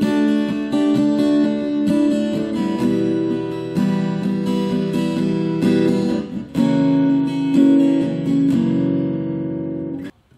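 Future FAG006C 40-inch linden-wood acoustic-electric guitar played fingerstyle, picked chords ringing over bass notes, with changes in chord. The playing breaks off suddenly just before the end.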